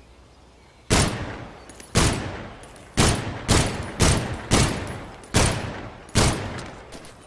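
M1911 pistol fired eight times in a row, the shots about half a second to a second apart, each followed by a long echoing tail.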